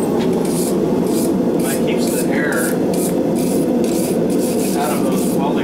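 Steel wire brush scrubbing the forge-welded wire cable on the anvil in quick back-and-forth strokes, about two to three a second, knocking off scale. A loud steady rushing noise runs underneath.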